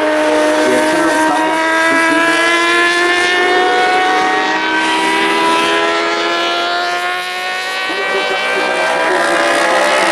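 Small-displacement Supersport 300/400 racing motorcycles running at high revs as they go through a corner. The engine pitch climbs slowly over several seconds, and another bike's engine joins about eight seconds in.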